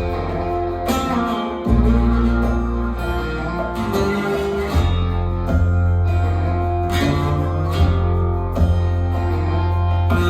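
Music played back through a Teufel hi-fi speaker system at 30% volume, with plucked strings over a deep bass line whose notes change every second or so.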